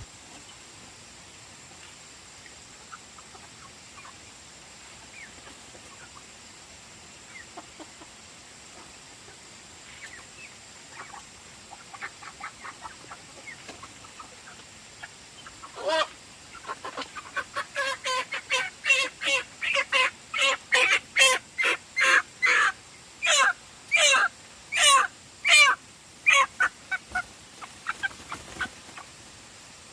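Chicken clucking faintly at first, then from about halfway through breaking into a loud run of squawks, about two a second, that thins out near the end.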